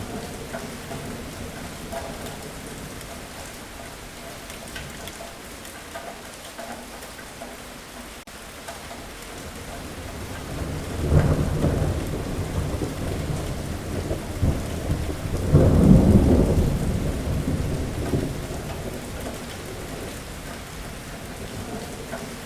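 Steady heavy rain with a long roll of thunder in the middle: the rumble comes in about halfway through, swells to its loudest a few seconds later, then dies away, leaving the rain.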